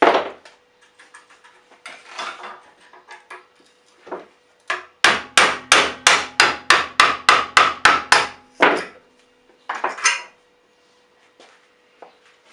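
Hammer striking metal in a fast, even run of about fifteen blows, some four a second, each ringing briefly, with a few scattered knocks before and after.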